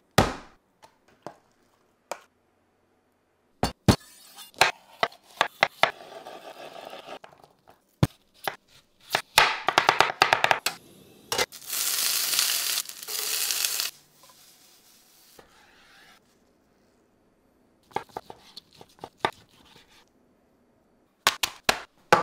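Kitchen prep sounds: an immersion blender cuts off at the very start, then scattered clicks and knocks of utensils. About twelve seconds in, sliced green peppers drop into a hot pan and sizzle loudly for about two seconds, fading out over the next two.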